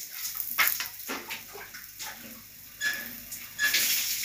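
Soft slaps and rustles of hands pressing and shaping a ball of wheat-flour paratha dough, in irregular strokes.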